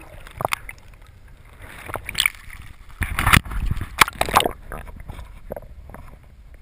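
Water splashing and lapping against a kayak, with scattered small splashes and a louder stretch of splashing and low rumble about three to four and a half seconds in.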